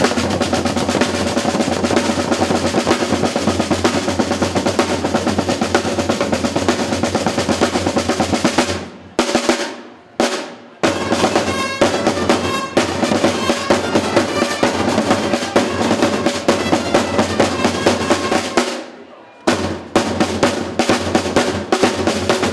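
Marching snare drums playing rapid rolls and beats with a bass drum, over a steady held note. The drumming breaks off briefly three times.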